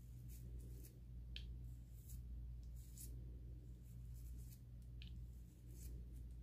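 Faint scratchy strokes of toothbrush bristles brushing styling gel into the hairline edges, coming irregularly about once a second, over a steady low hum.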